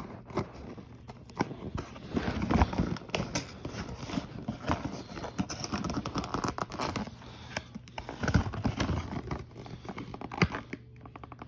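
A diecast toy's plastic and cardboard packaging being handled and pulled at to open it: irregular crinkling and crackling with many small clicks, and a sharp click at the very start and another near the end.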